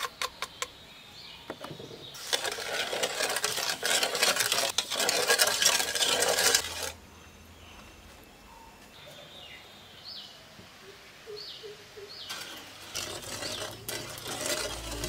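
Granulated sugar poured from a clay bowl into an aluminium pot of liquid: a dense, grainy rattle of grains lasting a few seconds, then quieter. Near the end a utensil stirs in the pot.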